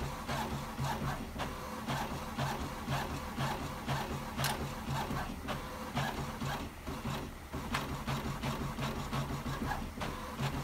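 HP inkjet printer printing on its finest quality setting: the print-head carriage shuttles back and forth in a quick, even rhythm of short pulses as the sheet feeds out a little at a time.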